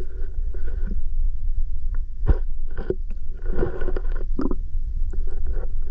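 Muffled, steady low rumble of a GoPro recording underwater in its waterproof housing, with irregular clicks and short knocks, the sharpest about two seconds in.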